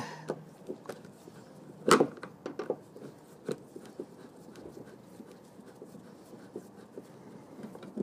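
Hand screwdriver working a screw out of a plastic interior door panel: faint scattered clicks and scrapes, with one sharper click about two seconds in.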